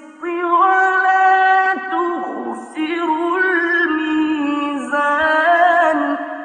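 A single unaccompanied voice chanting in long, ornamented held notes, with brief pauses between phrases; it starts to fade out near the end.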